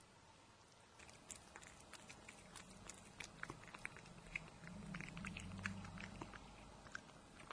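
A cat chewing and lapping wet flaked fish cat food from a plate: a quick run of small, soft, wet clicks and smacks, busiest in the middle. A low hum sits under it for about two seconds midway.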